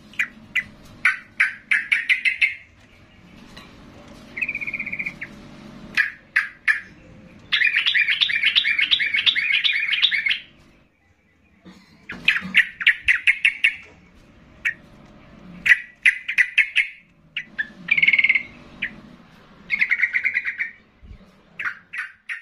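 Caged yellow-vented bulbul (trucukan) singing hard in 'gacor' song. It gives repeated bursts of rapid chattering notes, with one long unbroken trill about eight seconds in.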